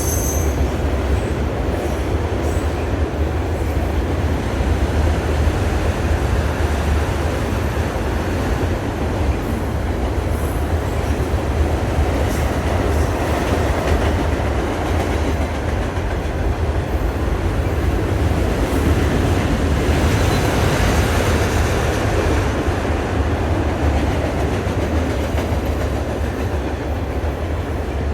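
Train rolling past with a steady heavy rumble of wheels on rail. A few times the wheels give brief high squeals.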